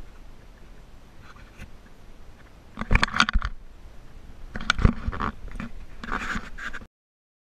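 Irregular scraping and knocking noises in two clusters, about three and five seconds in, over a low rumble. The sound cuts off abruptly to silence about seven seconds in.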